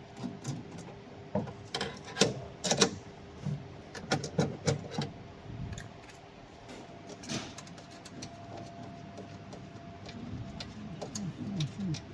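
Irregular clicks, taps and knocks of small hard parts being handled, loudest and busiest in the first three seconds, with a run of short squeaks near the end.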